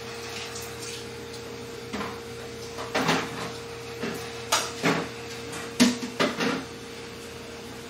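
Restaurant clatter: about seven sharp knocks of dishes and tableware over a few seconds, over a steady faint hum.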